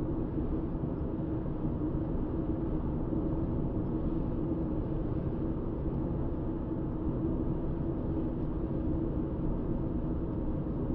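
Steady road noise inside a moving car's cabin: engine and tyre drone at a constant cruising speed, with a low, even hum.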